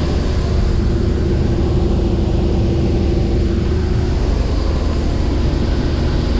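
John Deere 8820 combine running steadily while harvesting soybeans: a loud, even, low drone from its engine and threshing machinery.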